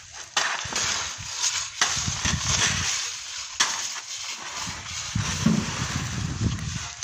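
Gusty wind on the microphone: an uneven low rumble with a hiss that swells and drops several times.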